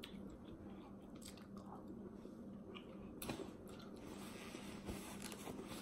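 Faint chewing and wet mouth sounds of a person eating snow crab meat, with a few soft clicks, the clearest about three seconds in.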